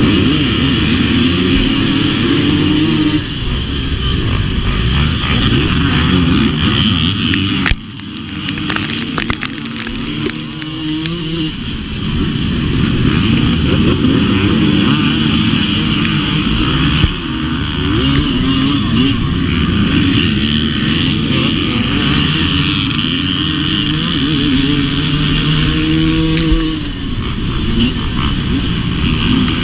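A KTM 250 XC-W two-stroke dirt bike engine revving up and down without pause, with a few brief drops in revs.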